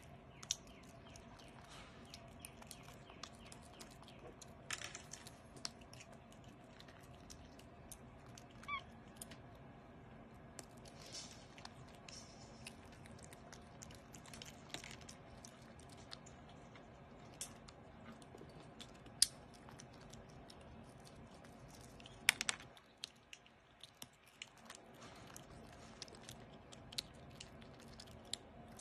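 Capuchin monkey eating at close range: faint chewing with scattered small clicks and taps over a low steady hum, and one short squeak about nine seconds in.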